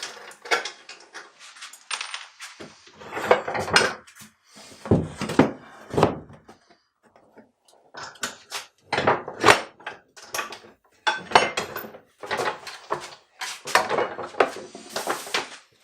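Irregular knocking and clattering of wooden parts and tools being handled and set down while fitting a wooden dust-collection box, with a brief lull in the middle.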